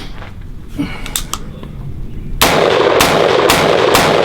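A few light clicks, then, about two and a half seconds in, a Prema Arms PAE AR-15 rifle fires in semi-automatic, four shots about two a second. The rifle is cycling reliably despite dirt blown into it by a tannerite blast.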